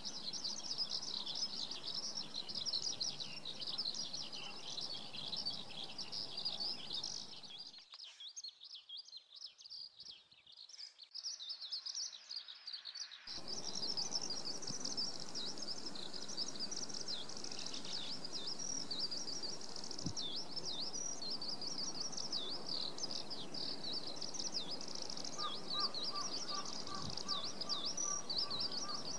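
Dawn chorus of many small birds, a dense high chirping and twittering that drops away to faint for about five seconds near the middle, then resumes. Near the end a lower note, repeated evenly several times a second, joins in.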